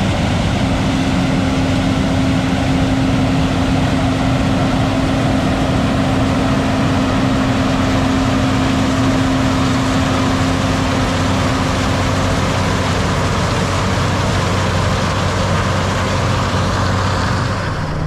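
Tractor diesel engine running steadily, heard from the cab, with a steady higher hum that fades out about two-thirds of the way through.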